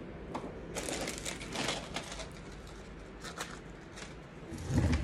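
Rustling and crinkling with scattered light clicks and knocks, as things are picked up and handled close to the phone.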